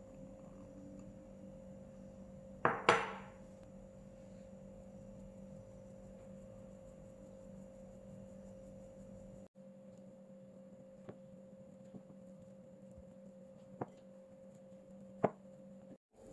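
A metal mesh sieve knocks against a glass mixing bowl about three seconds in: a sharp double clink that rings briefly. A few lighter taps follow near the end, all over a steady low hum.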